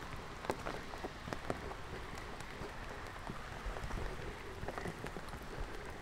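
Rain falling steadily, with individual drops striking sharply close by, scattered irregularly through the steady patter.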